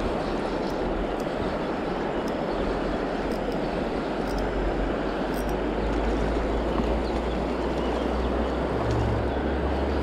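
Steady rush of shallow river current flowing around the wading angler, with a low wind rumble on the microphone building in the second half.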